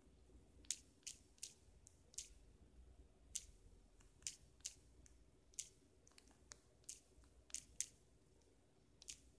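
Short, sharp clicks of digits being tapped out on a smartphone's on-screen number keyboard, coming in quick little groups of two or three over a faint low hum.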